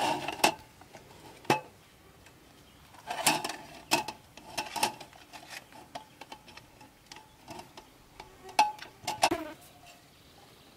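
Metal slats of a roll-up camp tabletop clattering and clicking against each other and the folding metal frame as the top is laid out and fitted. Scattered sharp metallic clicks and knocks, a few ringing briefly, the loudest in a cluster near the end.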